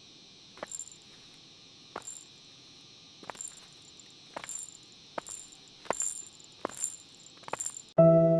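Steady high-pitched insect buzz, crickets or cicadas, with sharp footsteps about once a second on the descent. Music comes in near the end.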